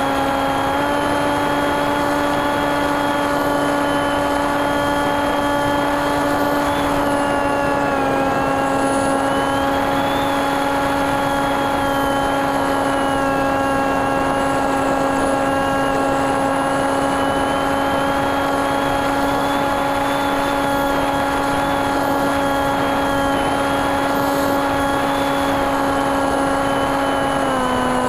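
TekSumo FPV plane's NTM 28-26 brushless motor spinning an 8x6 propeller at a steady throttle, heard from the onboard camera as a steady hum over airflow noise. Its pitch steps up slightly about a second in, then drops a little around eight seconds in and again near the end as the throttle is eased.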